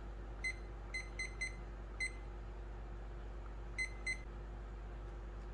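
Presto digital kitchen timer giving a short high beep at each button press as the time is set. There are seven quick beeps in irregular groups.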